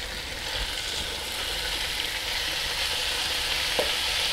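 Diced raw chicken breast sizzling steadily in hot olive oil in a preheated 12-inch cast-iron Dutch oven, stirred around with a wooden spatula; a light knock near the end.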